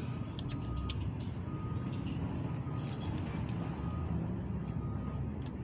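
Steady low background rumble with a faint thin tone that comes and goes and a few light clicks.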